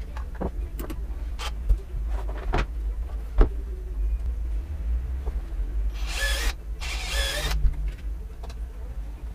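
Hands handling plastic door-panel backing pieces and tools on a workbench: scattered light clicks and knocks, the sharpest about three and a half seconds in, then two half-second scraping noises around six and seven seconds in, over a steady low hum.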